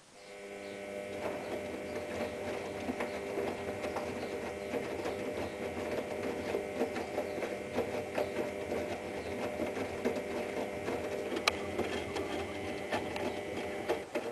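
Privileg Ergonomic 1600 S washing machine running for about fourteen seconds: its motor turns the drum with a steady hum and a crackling, grinding rumble from the drum bearing, which is badly worn. It builds up over the first second and cuts off suddenly at the end.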